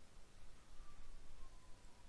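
Quiet room tone with a faint, thin high tone that comes in about half a second in and slides slightly downward in pitch.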